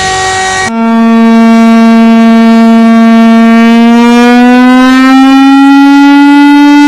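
Emergency alert siren: a loud single siren tone that starts abruptly under a second in and slowly rises in pitch as it winds up. It cuts in over the end of a steady multi-tone alert signal with hiss.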